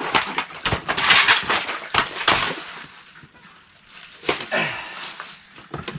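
Northern pike thrashing and splashing as it is hauled up through an ice-fishing hole, with a loud, messy commotion and a few sharp knocks.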